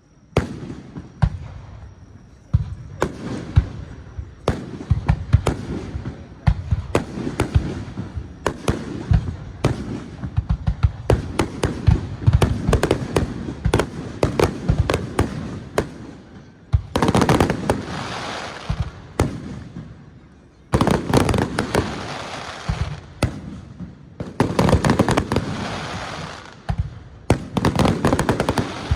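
Fireworks display: a rapid, continuous barrage of booming shells and sharp cracks, broken three times in the second half by stretches of dense crackling.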